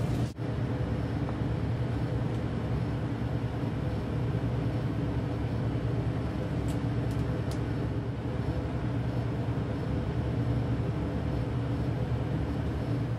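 Electric heat gun blowing steadily, a hum with an airy hiss, as it shrinks heat-shrink tubing over a soldered wire splice.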